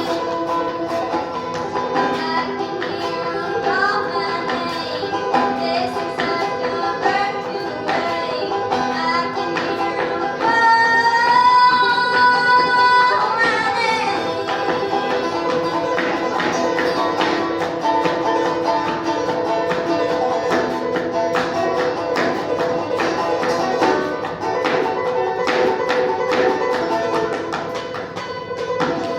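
Clawhammer banjo playing an old-time song with a voice singing over it, holding one long note about eleven seconds in.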